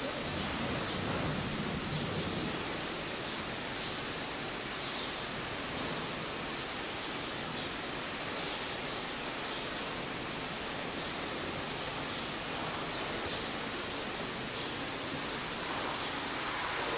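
Steady, even background hiss with no distinct splashes or calls.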